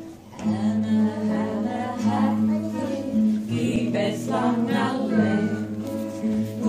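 A group singing a children's song together, accompanied by an acoustic guitar.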